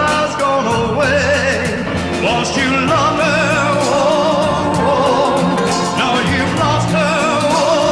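A song with a singer's voice, the melody held in long notes with vibrato, over a bass line and a steady beat.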